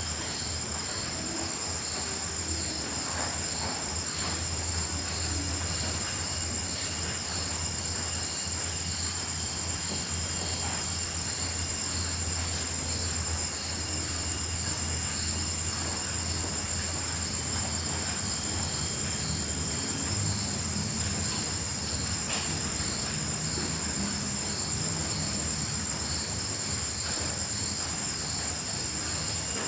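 Night chorus of crickets: one steady, continuous high-pitched trill, with a second insect's lower pulsing call repeating about twice a second beneath it, over a faint steady low hum.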